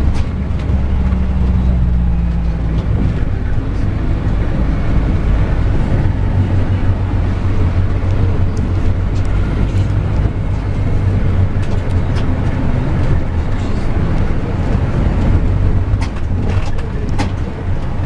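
Bus engine and road noise heard from inside the moving bus, a steady low drone, with a few sharp clicks near the end.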